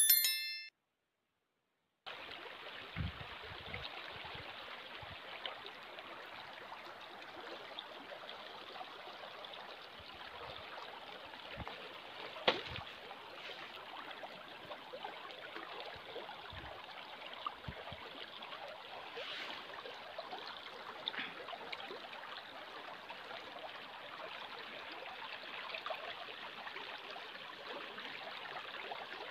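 A shallow mountain stream flowing over stones, with a steady rushing sound. It opens with a brief bright chime from a notification-bell sound effect, then a second of silence before the water starts.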